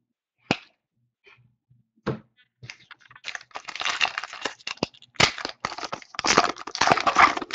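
Two sharp clicks as cards are handled, then a trading-card pack's foil wrapper being torn open and crinkled, starting about three seconds in and growing louder toward the end.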